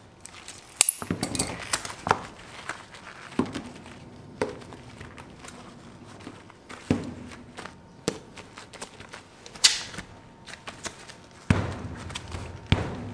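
Gloved hands working soft, warm candy dough on a work board: irregular soft thuds and taps as ropes of dough are cut, pressed together and set down, with a few sharp clicks.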